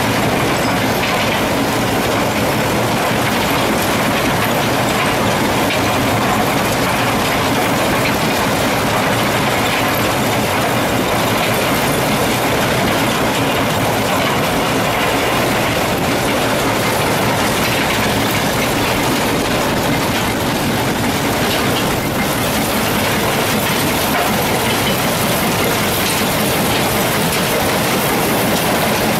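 Ore-processing plant machinery running: a rock crusher and belt conveyors make a loud, steady mechanical clatter and rumble with no pauses.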